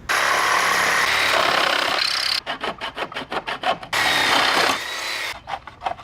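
Something abrasive scraping along a wooden pallet board. It scrapes steadily for a couple of seconds, then in fast back-and-forth strokes about seven a second, then steadily again, and in fast strokes again near the end.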